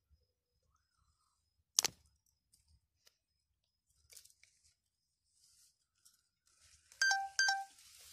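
Plastic macrame cord being handled and pulled tight during hand braiding: soft rustling and small clicks, a sharp click about two seconds in, and two short high tones over a rustle near the end.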